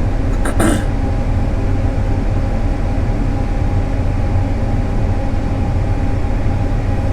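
Steady machine hum inside the cab of a John Deere S780 combine, with its engine and cab air conditioning running and a low rumble under a thin, steady whine.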